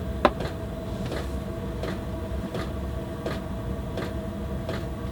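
Handling noises on a workbench: a sharp click about a quarter of a second in, then a few faint taps, over a steady low hum.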